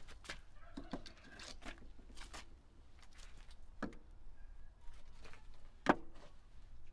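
Split firewood logs knocking against one another and against the floor of a brick-and-clay wood-fired oven as they are laid in one at a time, a handful of sharp wooden knocks with the loudest near the end.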